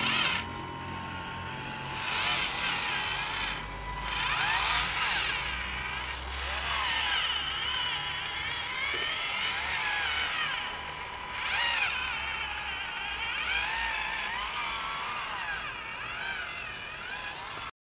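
Electric motors and gearboxes of radio-controlled Tamiya CC01 scale crawlers whining, the pitch rising and falling again and again as the throttle is worked while they climb over rock. The sound cuts off suddenly near the end.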